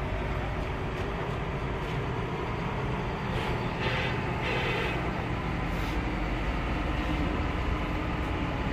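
Hino bus running steadily with a low engine rumble, with a few brief sharper noises about four to six seconds in.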